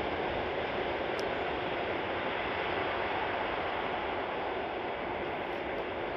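Distant, steady rumble of a 2M62U two-section diesel locomotive and its train running away down the line, slowly fading.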